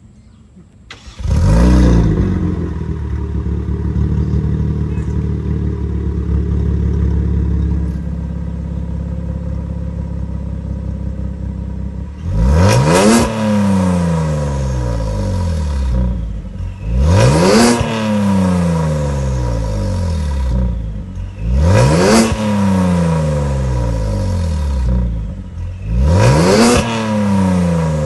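Kia Stinger GT's 3.3-litre twin-turbo V6 through a Fi Exhaust valvetronic catback with catless downpipes: it starts up about a second in with a quick flare of revs, then idles steadily, the idle dropping slightly around the middle. Then come four sharp throttle blips, each climbing fast and falling back over two or three seconds.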